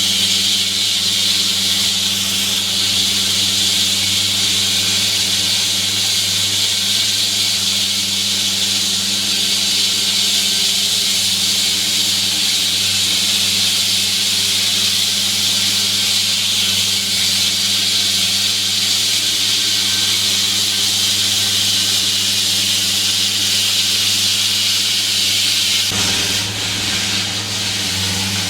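Large water-cooled diamond-blade concrete saw cutting into a road surface: the engine runs at a steady drone under a loud, steady high-pitched hiss from the blade in the cut. Near the end the hiss eases a little.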